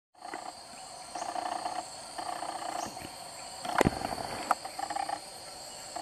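Outdoor animal sounds: a steady high drone, as from insects, runs throughout, with three short calls from an unidentified animal, each under a second long, about a second apart. There is one sharp click just before four seconds in.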